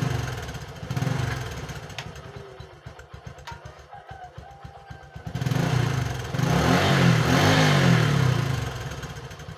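A small engine running, with a throbbing, slightly wavering pitch; it gets louder about halfway through and eases off near the end.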